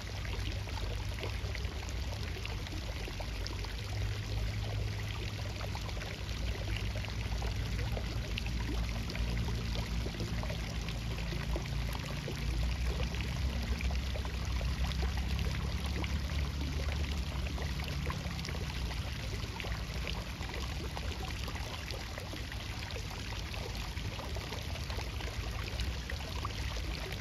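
Running water rushing steadily, with a low rumble underneath and fine splashy ticks throughout.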